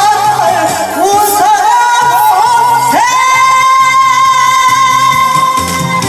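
A woman singing a Korean song into a microphone over recorded music played through a PA speaker. About three seconds in she settles on one long held high note with light vibrato, the closing note of the song.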